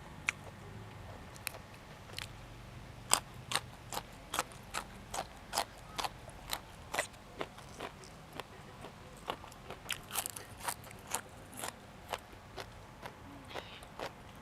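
A person chewing crisp raw vegetables with a steady run of crunches, about two a second, starting about three seconds in.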